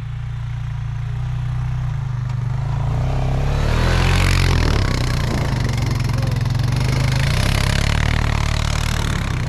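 Four-wheeler (ATV) engine running steadily, growing louder, with a broad rushing noise that swells in from about three seconds in.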